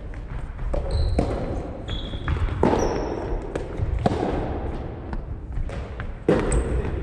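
Soft tennis rally: rackets strike a rubber soft tennis ball about four times, roughly every second and a half, each hit echoing through a large gymnasium hall. Brief high squeaks come in between, from shoes on the wooden court floor.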